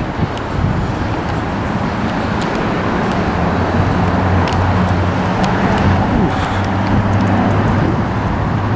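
Steady road traffic noise with a low, even hum underneath and a few faint ticks.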